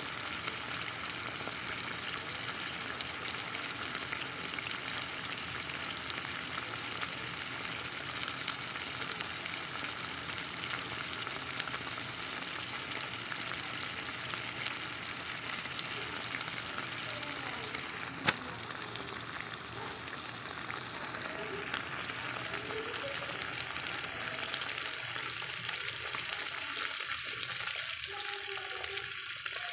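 Chunks of meat and potato sizzling in a pan of thick sauce: a steady, crackling sizzle. There is one sharp click a little past halfway, and the sizzle thins out near the end.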